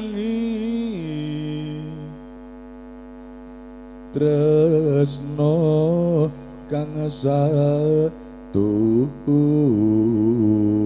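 Slow, melismatic singing over a loudspeaker, in long wavering phrases with sliding pitch, with pauses at about two seconds and again about eight seconds in. A steady electrical hum from the sound system carries on underneath and through the pauses.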